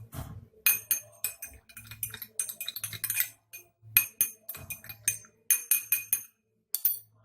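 A spoon stirring a honey and turmeric drink, clinking over and over against the side of its vessel in many quick, ringing taps in an uneven rhythm.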